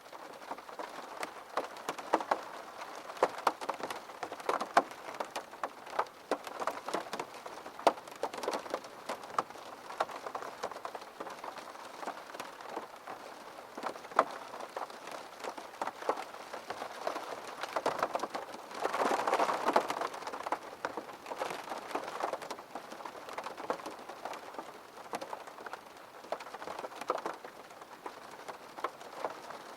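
Steady rain falling, with many separate drops ticking on a surface. A brief louder rush comes about two-thirds of the way through.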